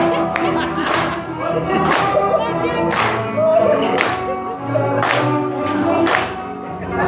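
Hungarian verbunk dance music with voices singing, and sharp hand claps keeping a steady beat about once a second.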